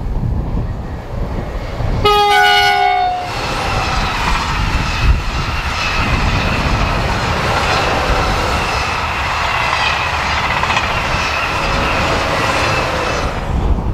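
French mainline train sounding its horn once, about two seconds in, for about a second, the pitch bending down as it ends, then the train passing for about ten seconds with loud, steady wheel-and-rail noise. Wind buffets the microphone throughout.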